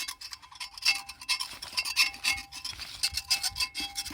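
Metal tool scraping and scratching in quick, irregular strokes, with a faint ringing tone now and then. It is scraping deposits out of the KamAZ engine block's cylinder-liner seat.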